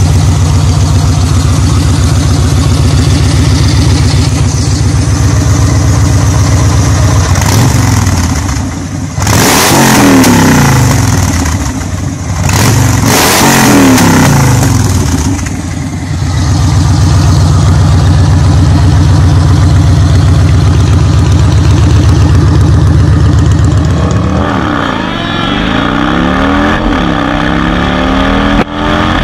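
Yamaha Star Raider's air-cooled V-twin on aftermarket pipes idling, revved hard a few times in the middle with the pitch falling back to idle after each. Near the end a motorcycle accelerates away, its pitch climbing and dropping through gear changes.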